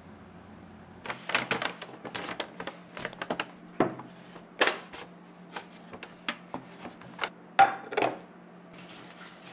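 Takeout food being unpacked on a table: aluminium foil and a paper bag crinkling and rustling, with sharp clinks of a metal fork against a plate and foil container. The handling noises start suddenly about a second in and come in a quick, irregular string of crackles and clicks.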